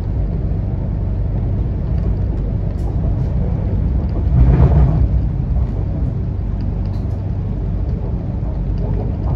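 MTR Kwun Tong Line train running, heard from inside the carriage: a steady low rumble of wheels and running gear. It swells louder for about half a second around the middle.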